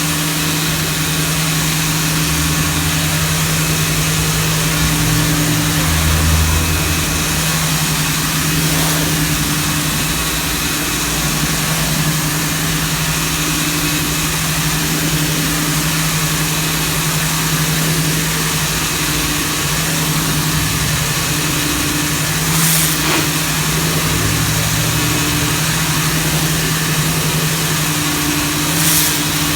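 Gas-engine pressure washer running steadily: a constant engine drone under the hiss of the high-pressure water spray on concrete.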